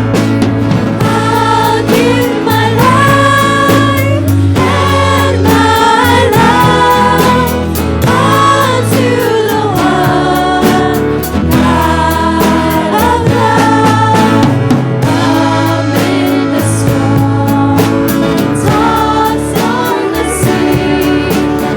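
Choir singing a Christian worship song with band accompaniment, the voices holding long notes over a steady bass line.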